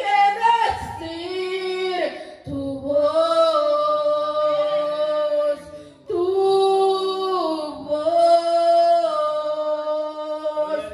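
A woman singing a Spanish worship song through a microphone, holding long notes in phrases broken by short pauses.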